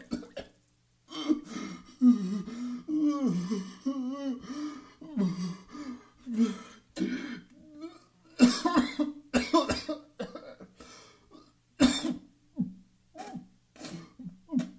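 A person retching and gagging over and over: short coughing, throat-clearing heaves, some of them voiced and wavering in pitch, with brief pauses between them.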